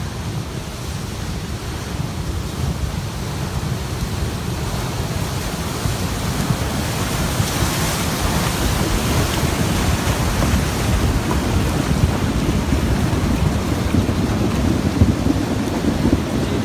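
Mountain river in flood: a steady rush of fast, churning water that grows gradually louder.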